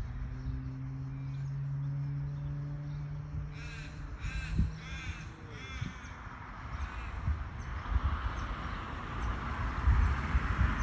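A crow cawing about five times in quick succession, starting about three and a half seconds in, over a steady low hum and wind rumbling on the microphone.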